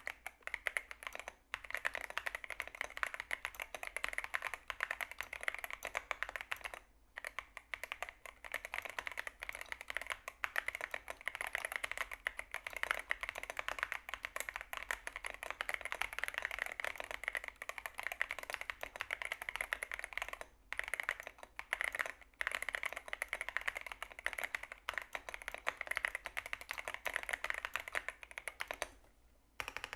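Epomaker RT100 mechanical keyboard being typed on: a fast, continuous stream of key clicks, broken by a few brief pauses.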